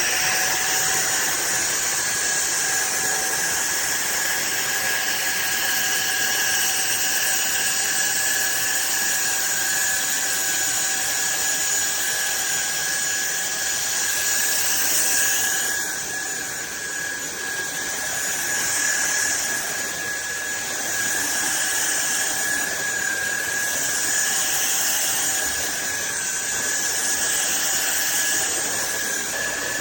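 Cordless stick vacuum cleaner motor running steadily with a high whine and rushing air. The air noise shifts and dips slightly from about 16 seconds in.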